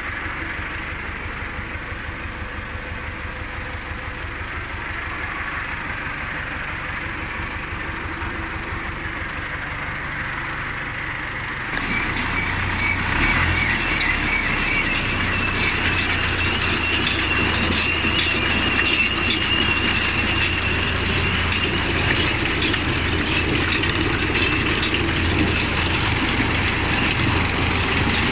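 A tractor running a John Deere 582 Premium round baler: a steady engine rumble, then about twelve seconds in it suddenly gets louder as the drive speeds up, and the baler's mechanism adds a fast metallic clatter and a high steady whine.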